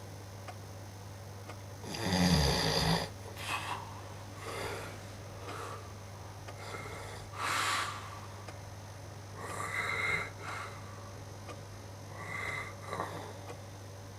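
A person snoring in their sleep: irregular snores and breaths every second or two, the loudest and deepest about two seconds in, over a steady low hum.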